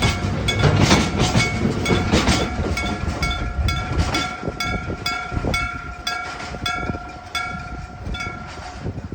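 An electric-bell (denshō-shiki) level crossing bell is struck rapidly and evenly with a ringing metallic clang, and it stops shortly before the end. Under it, a Sangi Railway freight train rumbles and clatters over the rails, loudest at first, then fading away.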